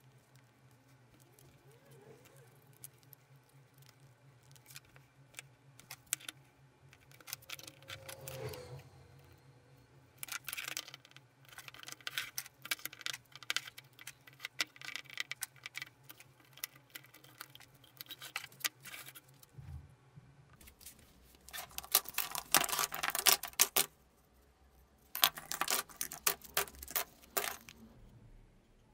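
Small workshop handling sounds: glue being spread with a metal spatula on cork and wood handle slabs, then plastic one-handed bar clamps clicking as they are worked. There are two dense bursts of rapid clicking near the end.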